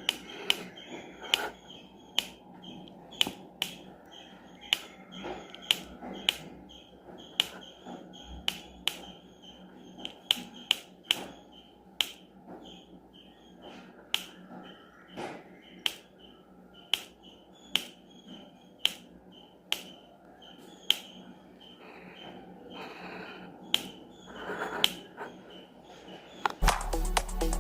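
Click beetle clicking: a long run of sharp single snaps at irregular intervals, roughly one or two a second. Each snap is the beetle's thoracic spine catching and then slipping into its groove.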